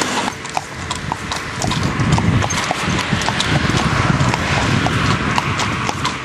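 Horses' hooves going clip-clop in a steady rhythm of about four strikes a second as the horses pull a carriage, over a low rumble.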